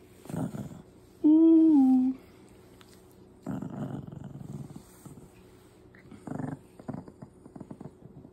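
Shih tzu puppy growling in several short rough bouts while its mouth is handled, with one loud, drawn-out note that falls slightly about a second in.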